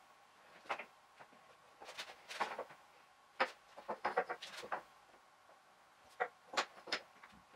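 Wood pieces and hand tools being handled and set down on a wooden workbench: irregular knocks and clicks, some in quick clusters.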